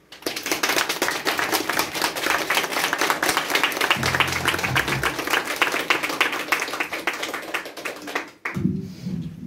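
Audience applauding: dense, even clapping that starts at once and stops about eight and a half seconds in.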